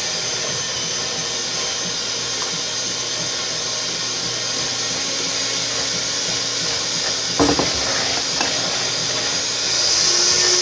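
A steady whirring, like a small electric appliance running, with a faint hum joining midway and a brief cluster of knocks about seven seconds in; it grows louder near the end.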